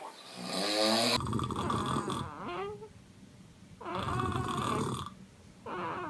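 A man snoring: three long snores with short pauses between them.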